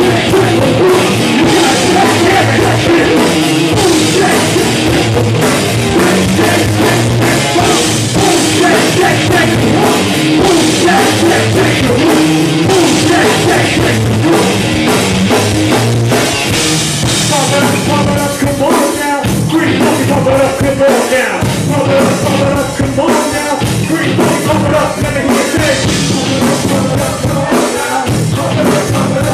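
Live band playing a loud rock arrangement, driven by a steady drum-kit beat.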